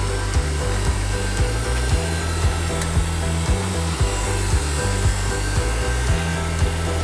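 Background music with a steady beat about twice a second and a stepping bass line.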